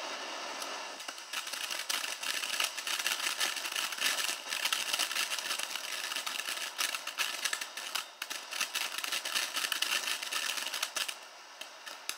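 Ground fountain firework spraying sparks: a steady hiss turns to dense, rapid crackling about a second in, and the crackling dies away near the end.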